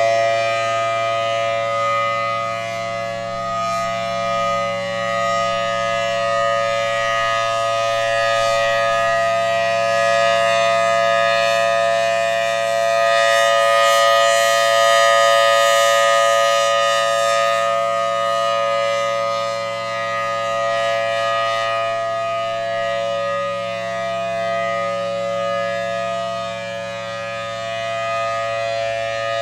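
Thunderbolt civil defense siren sounding a steady, constant-pitch tone, its loudness swelling and fading slowly over several seconds.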